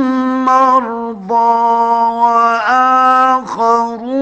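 Male Quran reciter in the melodic mujawwad style, drawing out the word 'marḍā' over one long held note with a few quick ornamental turns, in an old 1950s recording.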